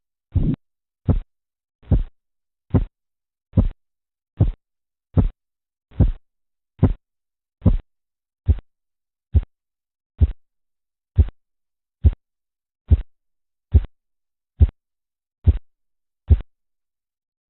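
Korotkoff sounds heard through a stethoscope over an artery under a deflating blood pressure cuff: a regular series of short thumps, a little under one a second, that stop about sixteen seconds in.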